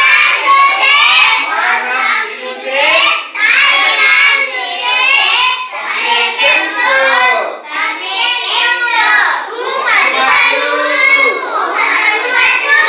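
A group of young children's voices chanting together in unison, steady and unbroken, in the rhythm of a class reciting phrases aloud.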